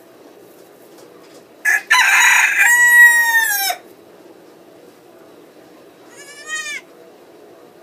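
Rooster crowing loudly once, about two seconds in, ending in a long drawn-out note. A shorter, quieter animal call follows about six seconds in.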